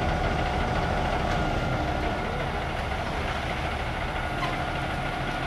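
Ready-mix concrete mixer truck running steadily while it discharges concrete down its chute: an even engine rumble with a faint steady whine.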